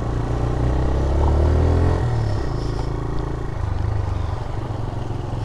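TVS Raider 125 motorcycle's single-cylinder engine accelerating, its pitch rising for about a second and a half, then dropping suddenly near two seconds in and running on steadily.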